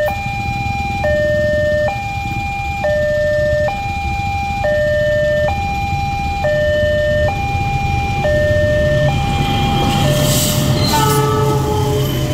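Railway level-crossing warning alarm sounding its electronic two-tone chime, a higher and a lower tone alternating about once a second. Near the end a diesel locomotive passes with a rising rumble and a brief horn blast.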